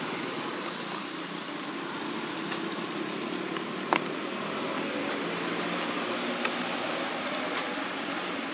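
Steady rain falling on wet ground and pond water, with a low steady hum underneath. A sharp tap about four seconds in, and a fainter one a couple of seconds later.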